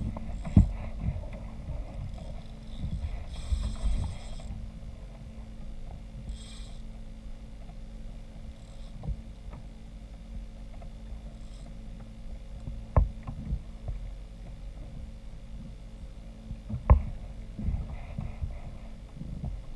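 Sounds of a kayak on the water: a steady low rumble with scattered knocks against the hull, three of them sharper than the rest, and a couple of brief hissing splashes.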